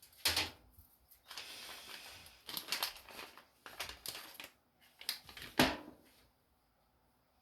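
Hand-handling noises at a workbench: a series of knocks and clicks, the loudest about five and a half seconds in, with a stretch of rustling or scraping about a second in.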